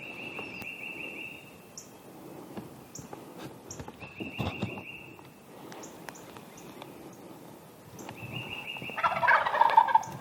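An Eastern wild turkey gobbler gobbles once, about nine seconds in, the loudest sound here. Behind it a songbird repeats a high, fine trill of about a second every few seconds, with scattered faint chirps.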